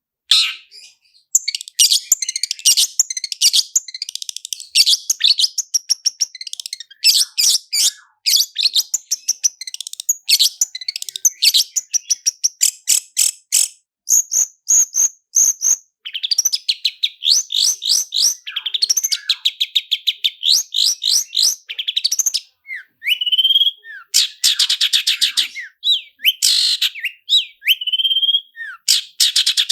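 Long-tailed shrike (cendet) singing a loud, fast, almost unbroken song: rapid rolling trills and strings of sharp high notes, with mimicked songs of other birds worked in.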